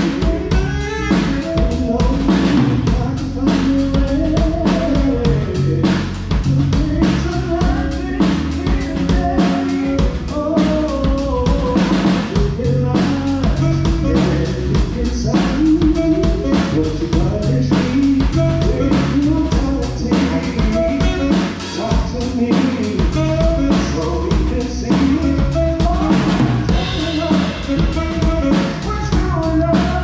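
Live band playing a song through the PA during a sound check: a full drum kit with kick drum and snare, under bass and other pitched instruments.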